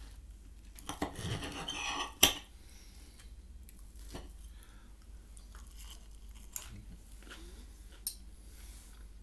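A metal fork scrapes across a plate, ending about two seconds in with a sharp clink of cutlery on the plate, the loudest sound. Quieter chewing follows, with two more sharp clicks later on.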